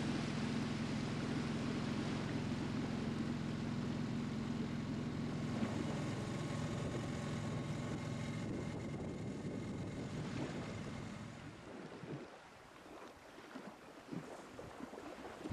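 A small sailing boat's motor running steadily with a low hum, over water and wind noise. About twelve seconds in the motor drops away, leaving fainter wind noise on the microphone.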